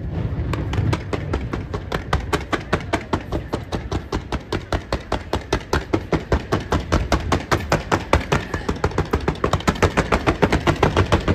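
Fireworks barrage: a rapid string of sharp bangs, about five or six a second, from a fan of comet shots, growing louder toward the end.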